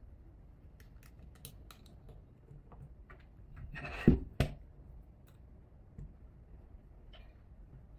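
Small clicks and scrapes of hard parts being handled, as in taking apart a lightsaber hilt. About four seconds in there is a louder rustling scrape, then two sharp knocks close together.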